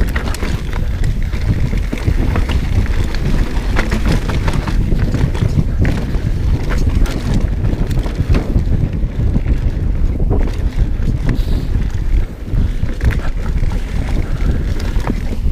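Wind buffeting the microphone over the clatter of a mountain bike riding a dirt trail, with frequent sharp clicks and knocks from the bike rattling over rough ground.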